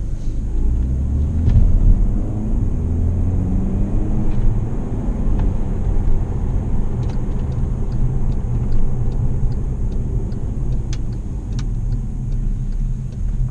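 Cabin sound of a VW CC with the 160 hp 1.4 TSI twincharged engine under way: a low engine and road rumble whose engine note climbs over the first few seconds as the car accelerates, then holds steady. From about seven seconds in, an even ticking of about three clicks a second, the turn-signal indicator, comes in as the car nears the fuel station on the right.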